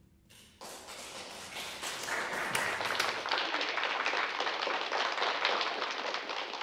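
Audience applauding: the clapping starts about half a second in, builds over the next couple of seconds and then holds steady.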